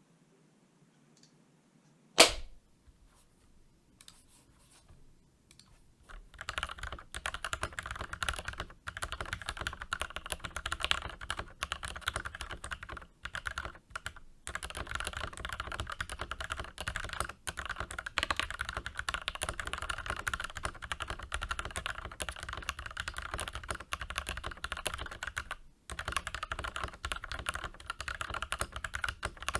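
Cooler Master MasterKeys Pro S mechanical keyboard being typed on fast and continuously, its Gateron Yellow linear switches lubed with Krytox 205g0, with polycarbonate switch films and lubed stabilizers. One loud knock comes about two seconds in, a few scattered key presses follow, and steady typing starts about six seconds in, with brief pauses.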